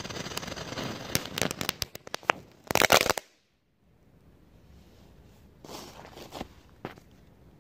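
Small ground firework hissing steadily as it sprays fire and smoke. About a second in it breaks into a quick run of sharp cracks, ends in a short, loud burst of crackling near three seconds, then stops, leaving a few faint crackles.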